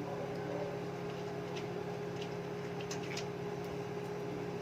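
Steady low room hum with a few faint light clicks, as the thumb screws holding a PC case's tempered glass side panel are unscrewed by hand.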